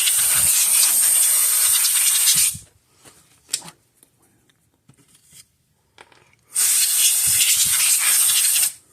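Two long bursts of pressurized spray hissing, each two to three seconds, the second starting about two-thirds of the way in, with a few small clicks and knocks between them.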